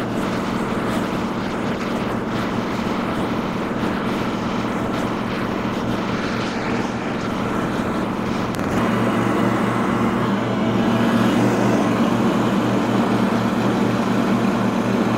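Engine of a Wright Stander B 32-inch stand-on mower running steadily under load while it mows and mulches overgrown grass. It gets louder from about nine seconds in.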